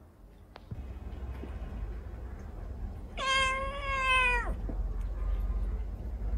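A cat meows once, a long drawn-out meow about three seconds in that drops in pitch at the end. A low steady rumble runs underneath.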